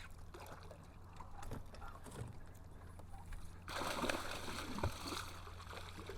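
Water splashing for about a second and a half past the middle as a small hooked musky thrashes at the surface beside the boat, over a steady low hum.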